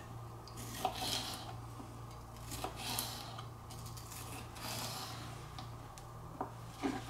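Paring knife slicing an orange bell pepper into strips on a plastic cutting board: soft cuts through the flesh with a few light taps of the blade on the board, over a steady low hum.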